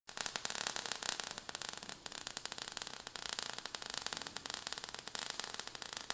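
Sound effect of crackling sparks: a steady hiss of rapid crackles.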